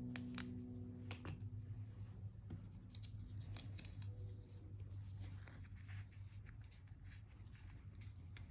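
Hands working with paper and stationery at a desk: small irregular clicks, snips and rustles, with one sharper click less than half a second in. A steady low hum sits underneath, and a held music chord dies away in the first few seconds.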